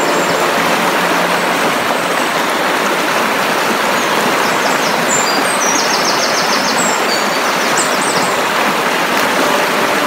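Mountain creek flowing over rocks, a steady, even rush of water. Background music fades out in the first second or two. Short high chirps come and go from about four to eight seconds in.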